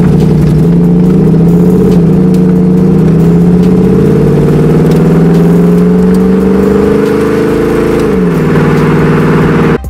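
Mercedes E420's M119 V8, heard at the tailpipe of its AMG stainless-steel exhaust while the car drives under load. The engine note climbs steadily for several seconds, then drops sharply near the end as the revs fall.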